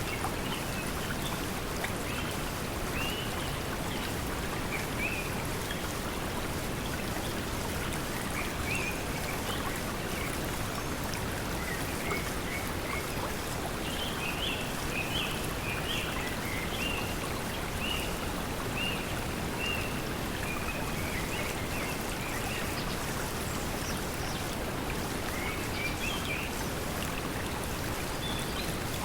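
Steady pink noise blended with the sound of flowing water, with short high bird chirps scattered through it, busiest around the middle.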